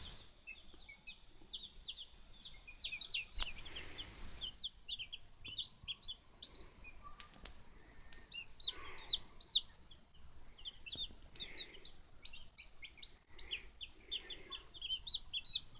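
A brood of newly hatched chicken chicks peeping: a rapid, overlapping stream of short, high-pitched peeps from several chicks at once, thinning briefly in the middle and picking up again.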